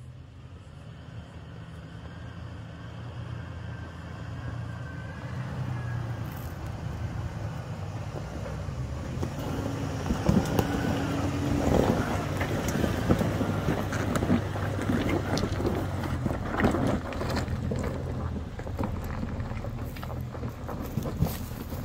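Off-road 4x4 vehicle's engine running steadily as it drives a rough trail, growing louder over the first ten seconds, with frequent sharp knocks and clatters from about halfway on.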